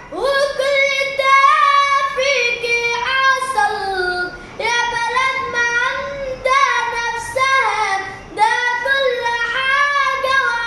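A child singing, holding long notes and sliding between them with ornamented turns, in phrases broken by short breaths.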